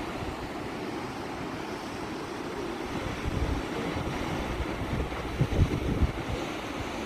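Strong wind buffeting the microphone in irregular low rumbling gusts, over a steady rush of ocean surf; the gusts hit hardest past the middle.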